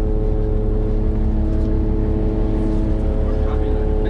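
Boat engine running steadily at an even speed, a constant hum over a deep rumble.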